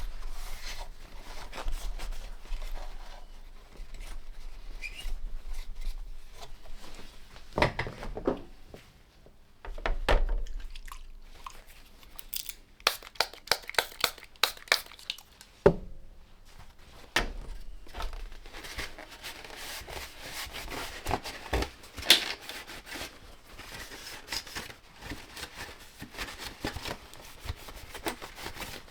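Workbench cleaning and handling of a vintage radio receiver: irregular rubbing and crinkling of wiping, with scattered light knocks and clicks as the set is handled. The cleaning is of leaked electrolytic capacitor fluid.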